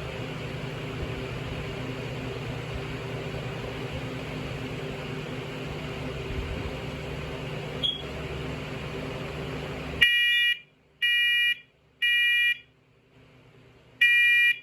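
Steady background hum with one short chirp about eight seconds in. The hum then cuts off suddenly and a smoke alarm sounds in a temporal-three pattern: three loud beeps about a second apart, a pause, then the next set of three beginning.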